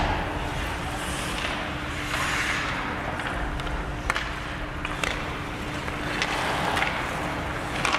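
Ice hockey play: skates scraping and carving on the ice, with several sharp clicks of sticks on the puck, over a steady hum.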